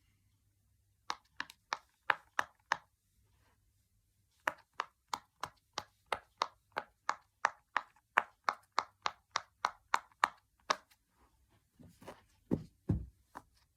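Silicone Pop It fidget toy bubbles being pressed, each giving a sharp little pop: a short run of six, a pause, then a long even run of about three pops a second. Two duller thumps near the end.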